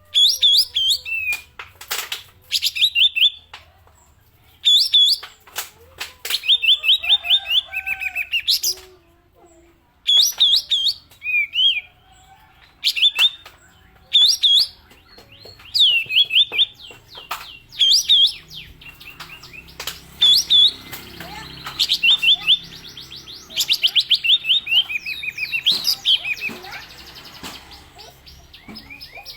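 A kapas tembak songbird singing in the 'nada pistol' (pistol-tone) style: repeated bursts of fast, sharp, high notes, each burst a quick series of falling chirps, with short pauses between bursts. A few sharp clicks are mixed in.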